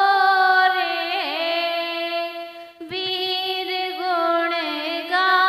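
A woman singing a Jain Paryushan devotional song, holding long notes with a wavering pitch; the voice breaks off briefly about three seconds in and then picks up again.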